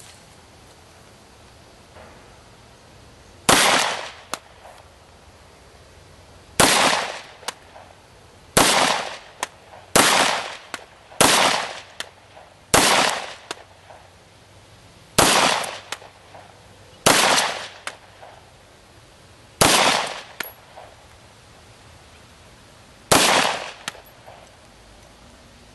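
FN FNP-9 USG 9mm pistol fired ten times at a slow, deliberate pace, with one to three seconds between shots. Each report is sharp and dies away in a short echoing tail.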